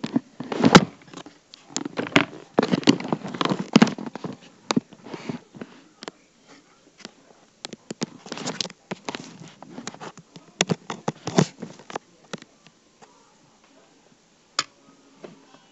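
Handling noise from a recording device held and moved right at its microphone: bumps, taps and rubbing, dense for the first dozen seconds, then mostly quiet with one sharp tap near the end.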